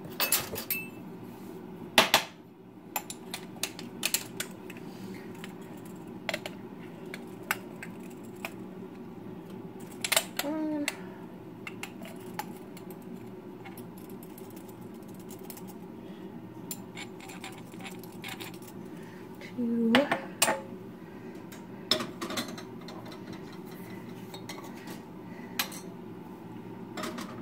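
Metal measuring spoon clinking and tapping against a jar and pot while spoonfuls are measured out: irregular sharp clinks, the loudest about 2 s and 20 s in, over a steady low hum.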